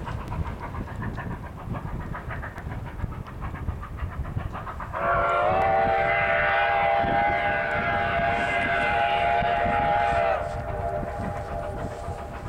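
Steam whistle of a Durango & Silverton narrow-gauge steam locomotive blowing one long chord of several tones, lasting about five seconds from about five seconds in, sliding slightly up in pitch as it opens. Under it, the low rumble of the approaching train.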